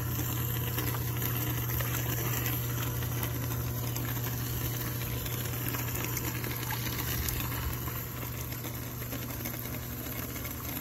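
Aerated boat bait well: water bubbling and churning steadily from the aerator, over a constant low hum.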